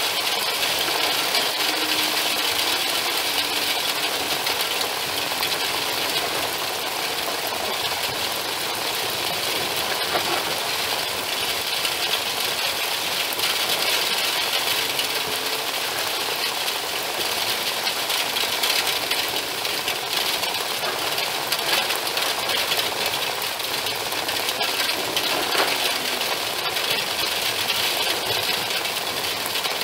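Heavy rain pouring steadily, a dense rapid patter of drops hitting close by.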